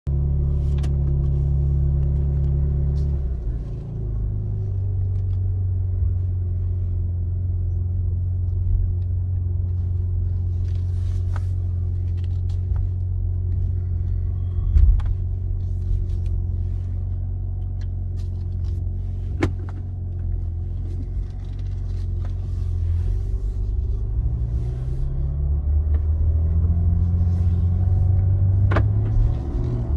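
BMW M3 (G80) twin-turbo straight-six running at low speed while the car backs up. A few sharp pops sound from the car, spread out, with the engine pitch shifting a few times in between: the popping noise the owner hears when reversing.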